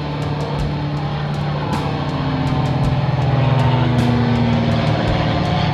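A light single-engine propeller plane droning overhead, growing louder to about the middle and easing off as it passes, with background music and a steady beat underneath.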